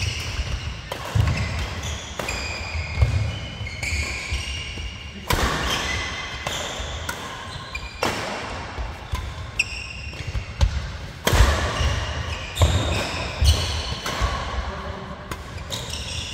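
Badminton doubles rally: rackets striking the shuttlecock in sharp hits every one to two seconds, with shoes squeaking briefly on the court mat and feet thudding.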